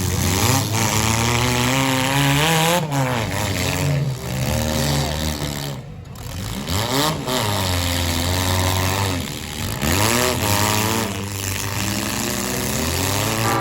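Engines of four-cylinder demolition derby cars revving up and down as they accelerate and back off, several at once, the pitch rising and falling over and over.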